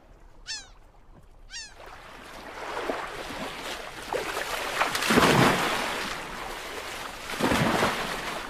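Humpback whales lobtailing: heavy tail slaps on the water surface, the loudest splash about five seconds in and another near seven and a half seconds, over a wash of water noise. Early on, two short bird calls sweep down in pitch.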